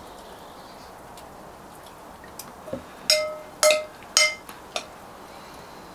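Metal spoon stirring chimichurri in a glass bowl, knocking against the glass: a few light taps, then three loud ringing clinks about half a second apart, with one more light tap after them.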